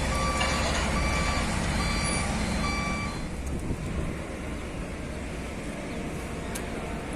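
A heavy vehicle's reversing alarm beeping, about four beeps a little under a second apart, stopping about three seconds in, over the steady running of a diesel engine.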